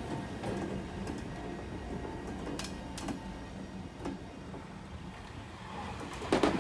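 Chichibu Railway Deki 500 electric locomotive pulling away along the track, a steady hum with scattered clicks of wheels over rail joints. Near the end a louder train begins clattering past.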